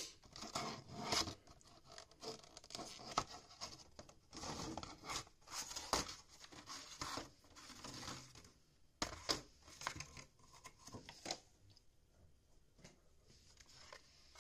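Clear plastic protector case being handled and the blister card slid out of it: a run of plastic scrapes, clicks and crinkles with a few sharper snaps, which thins out about eleven seconds in.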